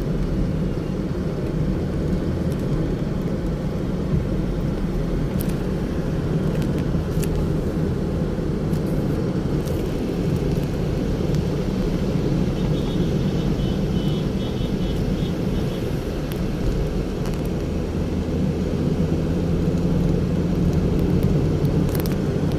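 Steady low rumble of a car's engine and tyres on the road, heard from inside the moving car's cabin. A short run of faint high beeps sounds around the middle.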